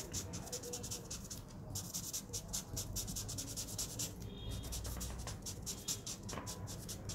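Marker nib scratching across card in quick short hatching strokes, several scrapes a second.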